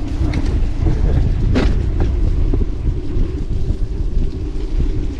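Wind buffeting the microphone of a mountain bike ridden fast, a loud, steady low rumble, with one brief sharper sound about a second and a half in.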